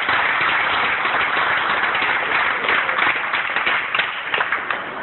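Audience applauding; the clapping thins to a few scattered claps near the end.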